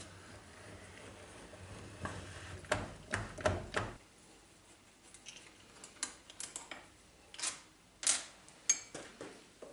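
Hand work on a metal lathe saddle being taken apart: a few hard knocks in the first half, then light clicks and metallic clinks of a hex key working the saddle's screws, with a few sharper clinks near the end, one of them ringing briefly.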